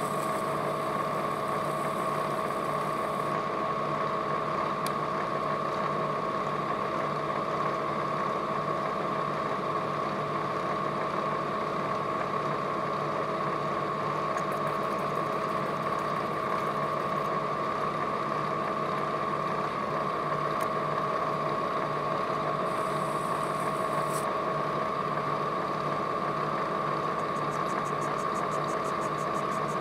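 Milling machine spindle running at a steady speed: a constant hum with a fixed high whine.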